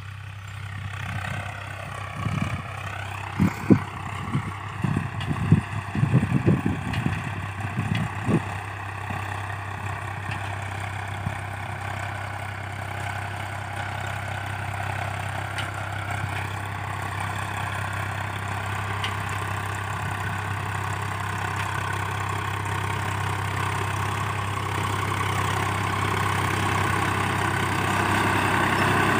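Tractor engine running steadily while ploughing, with a run of knocks and clatters over the first several seconds. The engine grows louder toward the end.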